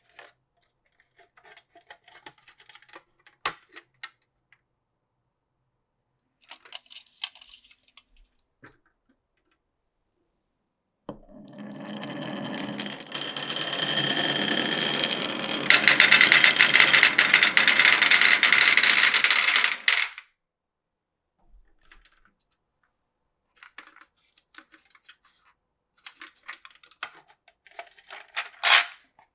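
Glass marbles clicking and rattling through a wooden marble run. About eleven seconds in, a continuous rolling rumble starts, grows louder and brighter around sixteen seconds, and stops suddenly at about twenty seconds; scattered clicks follow, with a sharper click near the end.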